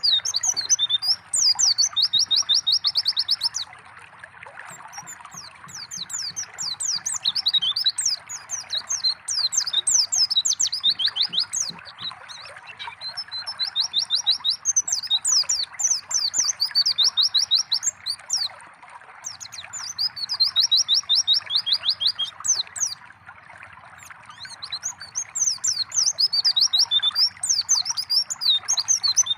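White-eye (pleci) singing in about five bouts of quick, high chirps and fast even trills, over a steady trickle of running water.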